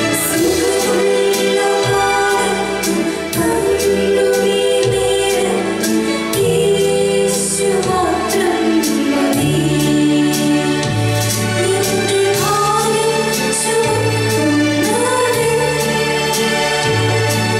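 Two female singers performing a Malayalam Christian song into microphones, over instrumental accompaniment with held bass notes and a steady beat.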